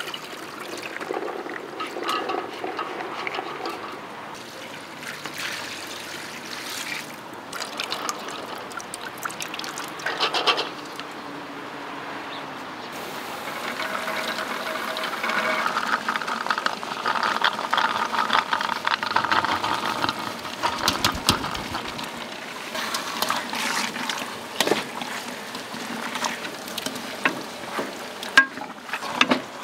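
Cooking sounds: boiled chickpeas are poured into a pot of broth, splashing into the liquid, and a wooden spoon then stirs the chickpea and meat stew in an aluminium pot, with scattered clicks and knocks.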